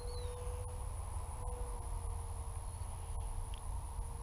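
Faint steady hum of a small electric RC biplane's motor and propeller flying at a distance, its pitch shifting slightly, over wind rumble on the microphone. A thin high insect whine runs underneath, and a bird chirps once right at the start.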